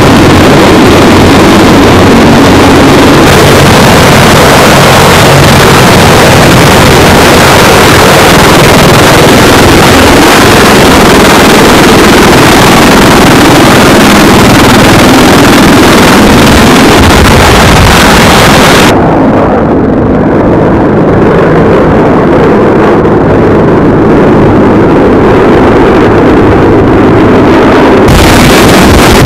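CH-53 heavy-lift military helicopters flying overhead: loud, steady rotor and turbine noise with a deep rumble. The sound changes abruptly a few times, the high hiss dropping away for most of the last ten seconds.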